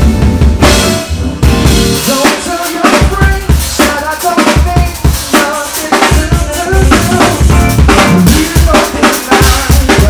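A live band playing: a drum kit with kick drum, snare and rimshots keeping a steady beat, under an electric bass guitar playing a strong low line.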